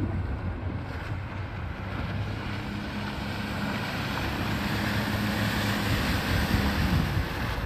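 Small outboard motor on an inflatable boat running at speed, a steady hum that grows louder as the boat approaches and drops in pitch as it passes near the end, with the hiss of spray and wind on the microphone.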